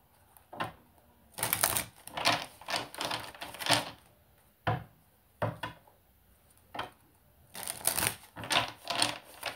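A deck of tarot cards shuffled by hand, giving short bursts of rapid papery clicking with brief pauses between.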